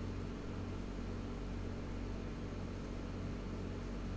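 Steady, even background noise with a low hum underneath.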